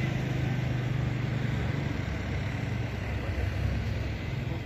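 A motor vehicle's engine running steadily, a low hum over a broad rushing noise.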